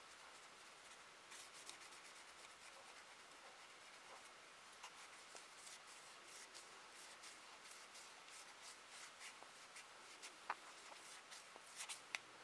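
Faint rubbing of an ethanol-soaked cotton pad over a clear plastic Kraftmax battery box, scrubbing off leftover sticker adhesive, with many small scratchy ticks.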